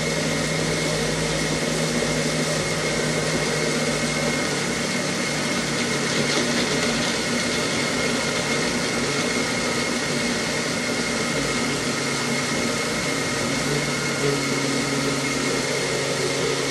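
Single-serve personal blender motor running steadily as it blends a drink, its pitch dropping a little about 13 seconds in.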